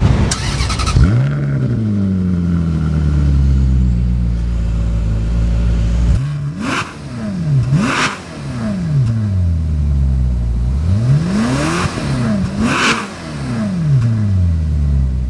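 Ferrari California's 4.3-litre V8 starting: a brief crank, then it catches with a flare in revs and settles to a steady idle. It is blipped twice in quick succession, then twice more near the end, each time falling back to idle.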